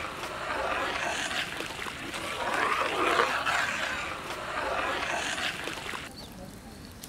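A ladle stirring thin curry gravy in a large metal pot, the liquid sloshing in swells about every two seconds. It cuts off suddenly about six seconds in.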